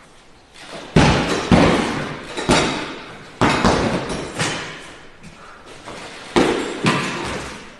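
Taekwondo kicks landing on a free-standing heavy punching bag: about eight sharp thuds in uneven groups of one to three, each dying away briefly.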